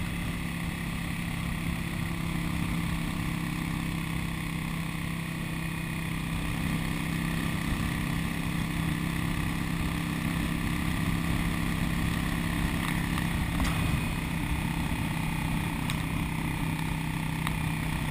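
Motorcycle engine running steadily at cruising speed, with wind noise rumbling on the microphone.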